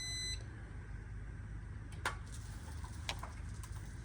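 Jazzy power wheelchair joystick controller giving one short, high-pitched beep at the start, then a pause with a low hum and a few light clicks. It is the gap between groups of fault-code beeps, the controller signalling error codes.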